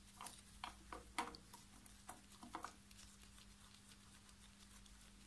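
Faint light metallic clicks of a nut being turned off by hand at the clutch centre of a Triumph Trident T160 engine: about ten ticks in the first two and a half seconds, then near silence with a faint steady hum.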